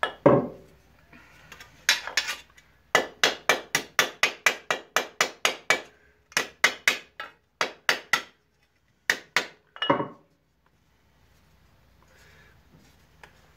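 A Rapid mower's metal drum struck sharply and repeatedly with a tool, in quick runs of about four knocks a second with short pauses between. The knocking stops about ten seconds in.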